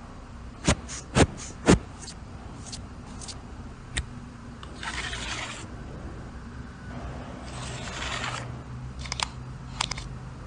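Keyboard and cleaning tools being handled: sharp plastic clicks, three loud ones close together about a second in, then two spells of scratchy brushing or scraping, and a few more light clicks near the end.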